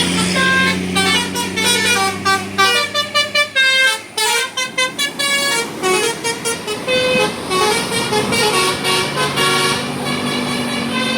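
Bus telolet horn of the basuri type playing a tune of short stepped notes, quickest in the middle, over a steady low hum.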